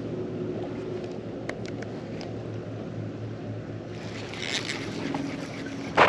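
Water lapping against a plastic kayak hull, with wind on the microphone. There are a few light clicks about one and a half to two seconds in, and a brief crackling burst about four seconds in.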